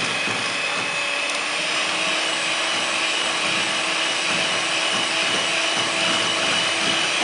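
Electric hand mixer running steadily, its beaters whisking a mixture of oil and sugar in a plastic bowl.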